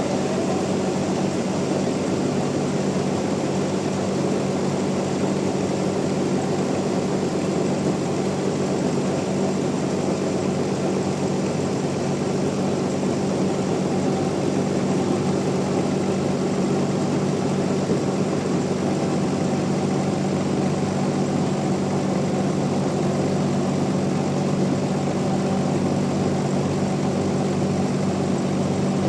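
Large log band sawmill running steadily: an even machine hum that does not change or pause.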